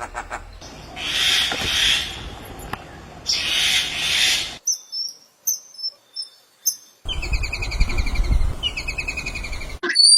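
A string of different bird calls with abrupt changes between them: two long hissing calls, then high thin chirps, then a rapid series of short trilled notes.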